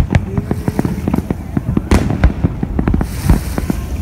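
Aerial firework shells bursting in quick, irregular succession: many sharp bangs and crackles over a low rumble, with a brief hissing crackle near the end.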